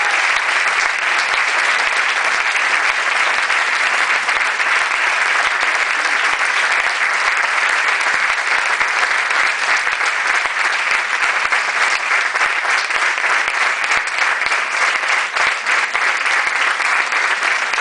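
Audience applauding, many hands clapping in a dense, steady stream that thins a little near the end.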